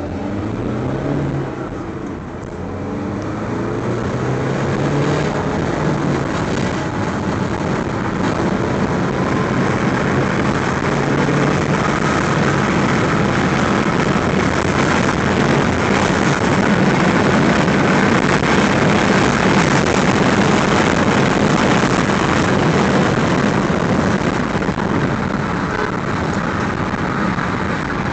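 VW Polo 1.6 GT TDI's four-cylinder turbodiesel accelerating hard, heard inside the cabin. The engine pitch rises, drops at a gear change about two seconds in, then climbs again. Tyre and wind noise build with speed and cover the engine as the car holds around 100 km/h.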